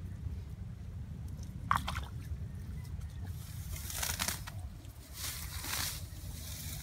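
Muddy water sloshing and squelching as hands and feet work through a shallow ditch, with a few short splashes about two, four and five seconds in, over a steady low rumble.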